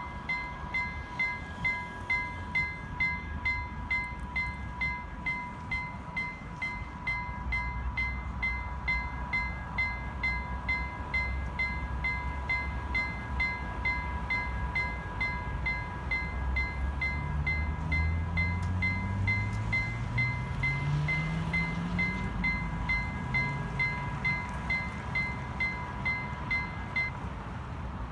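Vialis WMA electronic level-crossing bells ringing a steady ding about twice a second as the crossing warning runs, stopping shortly before the end. A low hum rises in pitch in the second half while the JEGD gate mechanisms lower the metal barrier gates.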